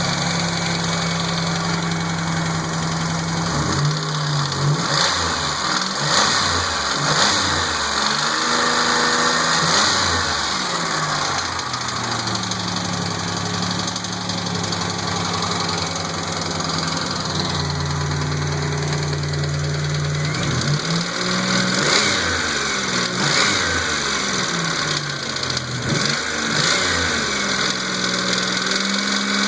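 Rebuilt GM 3100 3.1-litre V6 running: a steady idle broken by several blips of the throttle, its pitch rising and falling with each rev, in two spells in the first and second halves.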